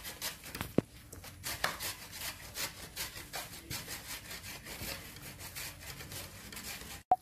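Hands squeezing and rubbing grated beetroot, onion and flour together in a steel mixing bowl: a faint, rhythmic rustling and scraping, about two or three strokes a second, with one sharp click a little under a second in.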